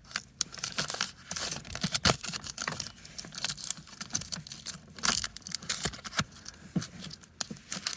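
Adhesive tape and plastic being handled: a dense run of crackling and rustling with many sharp clicks.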